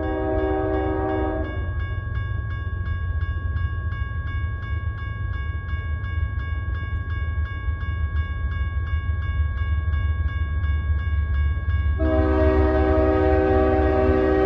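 An approaching CSX freight locomotive's horn sounds a short blast, then a longer one near the end, while a bell rings rapidly and evenly over a steady low rumble.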